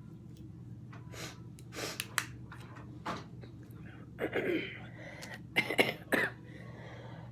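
A person with a cold making a series of short sniffs and breathy mouth noises, about eight of them, scattered over a faint steady low hum.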